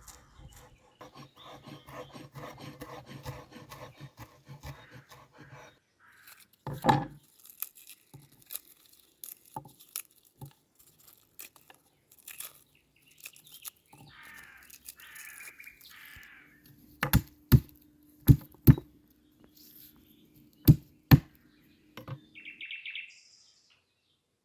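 A run of irregular sharp knocks and clicks, with a duller thud about seven seconds in and a cluster of loud clicks in the last third, like utensils or objects being handled.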